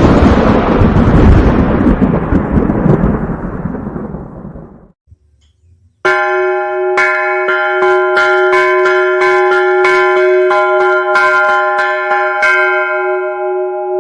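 Thunder rumbling with a rain-like hiss, fading out about five seconds in. After a short pause, a bell starts ringing, struck rapidly and repeatedly so that its tones run on without a break.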